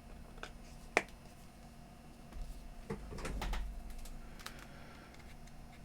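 Small handling noises at a workbench: a single sharp click about a second in, then a few softer clicks with a low rumble around three seconds in.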